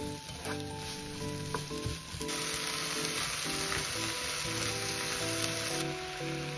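Vegetables sizzling in a hot nonstick pan as they are stir-fried with a wooden spatula, with a few light taps. About two seconds in the sizzle turns much louder and brighter as slices of frozen beef go into the pan. Soft background music plays underneath.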